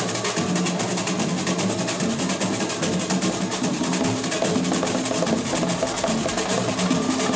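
Live samba percussion: drums played in a fast, steady rhythm of dense strokes.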